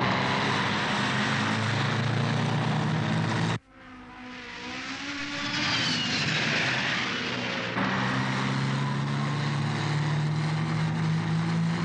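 Cartoon sound effect of a race car engine running hard at a steady pitch. It cuts off abruptly about a third of the way in, giving way to a rushing whoosh that builds with falling whistle tones as the car speeds past, and the steady engine note comes back about two-thirds of the way through.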